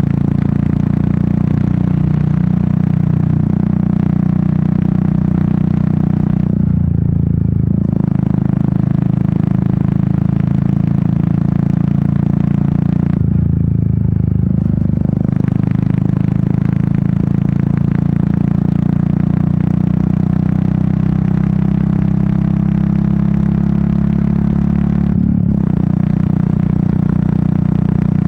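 Royal Enfield Meteor 350's single-cylinder engine and exhaust running steadily under way, heard from the rider's position. The sound dips briefly three times, about 7, 14 and 25 seconds in.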